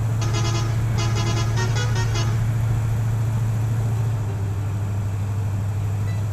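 A toy mini truck's horn tooting in a quick string of short beeps during the first two seconds, over a steady low hum that runs throughout.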